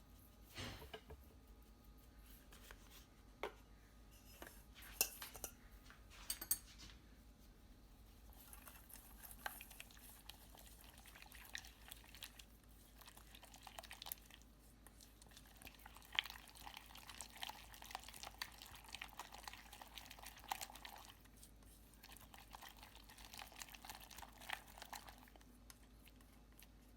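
Faint clinks and scraping of a utensil stirring an egg, shredded mozzarella, salt and pepper together in a bowl. A few separate knocks come first, then a long stretch of continuous stirring.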